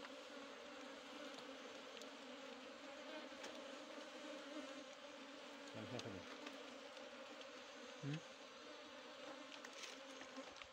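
A colony of honeybees clustered on a branch, buzzing in a faint, steady hum.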